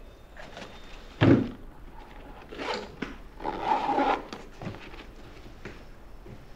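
A fabric motorcycle touring bag being handled on a wooden table. A single thump comes about a second in, the loudest sound. It is followed by nylon rustling and a longer rasping stretch as the side pouch is zipped shut.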